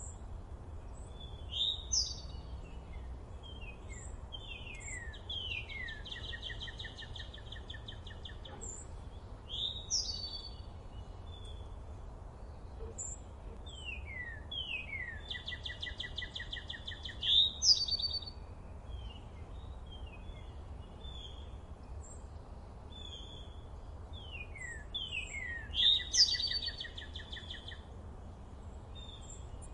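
A songbird singing the same song over and over, four times, about every eight seconds: quick downward-sliding notes running into a buzzy trill. A low steady rumble of background noise lies beneath.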